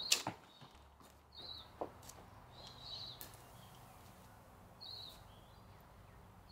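Faint, short, high bird chirps every second or two. A few light running footsteps sound right at the start.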